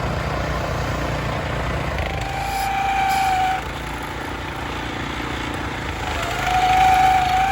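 Small engine running steadily. A steady high-pitched tone sounds twice over it, about two seconds in for a second and a half and again near the end.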